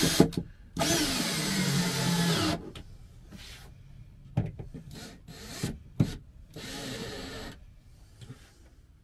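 Cordless drill driving screws through small aluminium angle brackets into the underside of a wooden countertop. The motor runs hard for about two seconds, its pitch sagging and wavering as the screw bites and seats. After that come a few short, quieter bursts and knocks.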